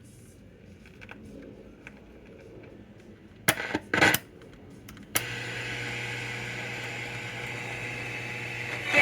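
Arvin 30R58 AM/FM tube radio's speaker giving a few loud crackles about three and a half seconds in. From about five seconds in it settles into a steady low hum with hiss, as heard between stations just before a station comes in.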